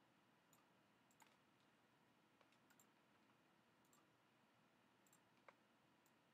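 Near silence with a few faint, scattered computer mouse clicks, the clearest about five and a half seconds in.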